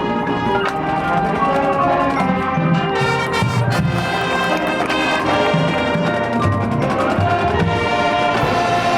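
High school marching band playing its field show: the brass section sounds sustained chords and melody over percussion, with a few sharp drum hits partway through.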